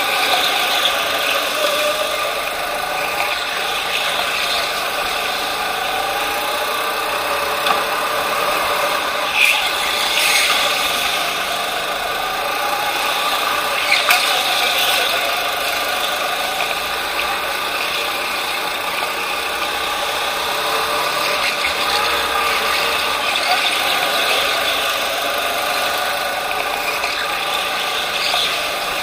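Racing go-kart running at speed, heard onboard: a steady motor whine that rises and falls in pitch through the corners. A few sharp knocks cut in a little under halfway through.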